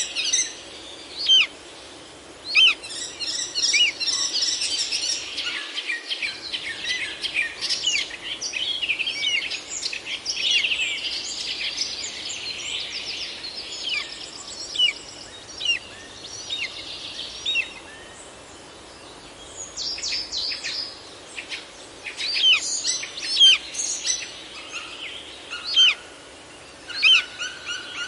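Wild birds calling: many short, sharp chirps and whistles, some sliding down in pitch, over a steady background hiss, with a lull about two-thirds of the way through.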